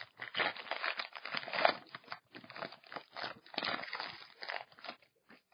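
Wrapper of a 2012 Topps Finest baseball card pack crinkling and crunching in irregular handling noise as the pack is opened by hand; the rustling stops about five seconds in.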